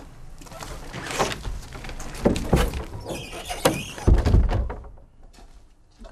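Old wooden house door being opened and shut, with scraping and several heavy wooden knocks and thuds, the loudest a little past the middle.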